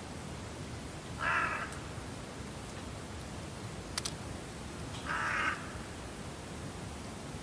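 A crow cawing, two single caws about four seconds apart, over a steady faint hiss, with a brief sharp click between them.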